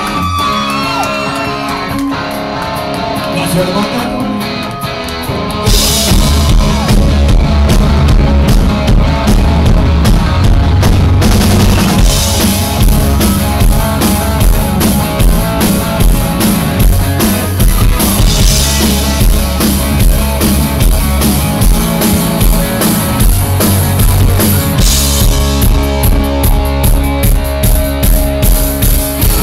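Live rock band playing: at first a guitar alone with sliding notes, then drums and bass guitar come in together about six seconds in and the full band plays on loud with a steady beat.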